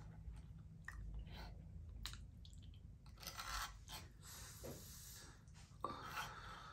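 Faint eating sounds: a fork picking through a pile of mac and cheese on a wooden board, with soft clicks and scrapes and some chewing. A sharper click comes near the end.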